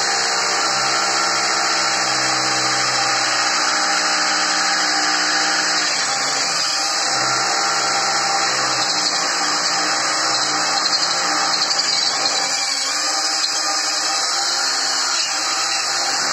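Corded electric drill running continuously as it drills into a ceramic-tiled wall, its motor pitch wavering slightly as the bit cuts.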